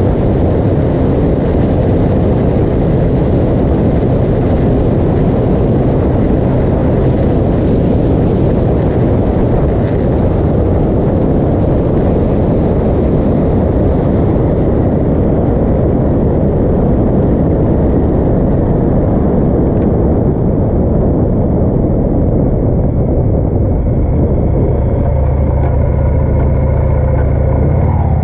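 Motorcycle riding at road speed: a loud, steady rush of wind over the microphone with the engine running underneath. In the last few seconds the rush eases and a steady low engine note comes through as the bike slows.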